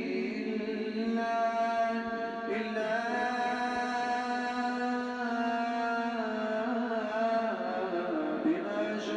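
Chanted Quranic recitation: one voice holding long, steady melodic notes, the longest lasting about five seconds, stepping to a new pitch a few times.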